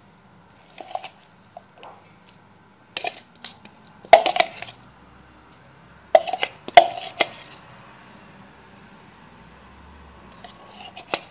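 A metal spoon clinking and scraping against a bowl as blended onion and garlic are spooned out, in short clusters of sharp taps with quiet stretches between, some ringing briefly.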